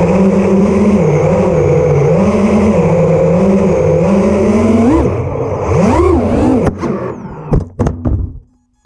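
FPV racing quadcopter's brushless motors and propellers whining, heard from the onboard camera, the pitch rising and falling with throttle and swooping up and down shortly before the end. Several sharp knocks follow as the quad clips a metal pole, and the motors fall silent: the strike killed the Kiss V2 flight controller and all four ESCs.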